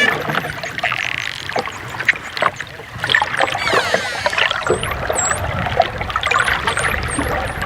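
Dolphins whistling and clicking underwater: a falling whistle with several overtones about halfway through, then a string of short, high rising chirps, over quick clicks and a hiss of water.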